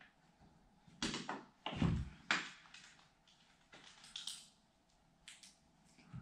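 Sliding glass patio door handled in its frame: a few separate clunks and taps as it is pulled up and shifted by hand, with quiet gaps between.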